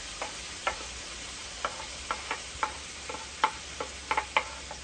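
Chopped tomato and shallot scraped off a cutting board into a pot of hot coconut oil. It makes a dozen or so irregular clicks and taps over a faint steady sizzle.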